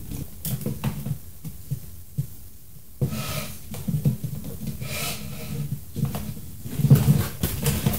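Handling noise from a plastic doll and toy horse being moved about on a table: soft bumps, knocks and rubbing over a low, uneven rumble, busier in the second half.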